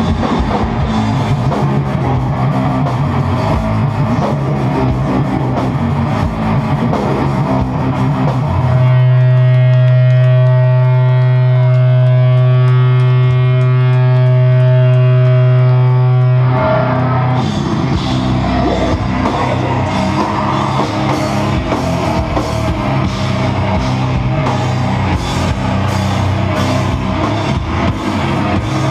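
Loud live sludge metal: heavily distorted electric guitar through Marshall stacks, with a drum kit. Partway through, the drums stop for several seconds while one low guitar chord is held and rings out on its own, then the full band comes back in.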